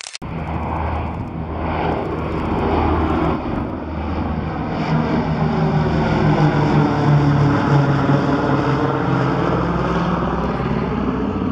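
The four Wright Cyclone radial engines of a Boeing B-17G bomber droning steadily as the plane passes, swelling to their loudest about seven to eight seconds in.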